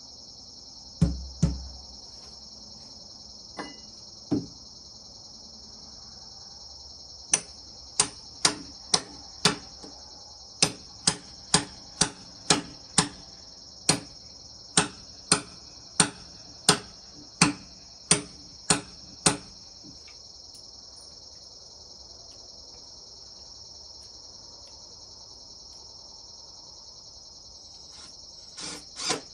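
A run of sharp hammer blows, about eighteen of them roughly every half second to second, with a few single blows a little earlier, over the steady chirring of crickets. A power tool starts up loudly right at the end.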